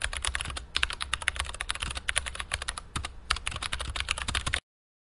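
Rapid typing on a computer keyboard: a dense, fast run of key clicks that stops abruptly near the end.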